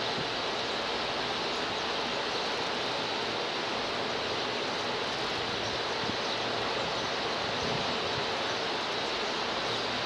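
Steady, even rushing outdoor background noise, with no distinct bird chirps standing out.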